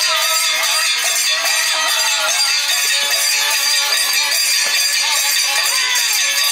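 Kirtan music: several pairs of small brass hand cymbals (kartal) clashing over and over in a fast, unbroken jingle, over held harmonium chords and a man singing.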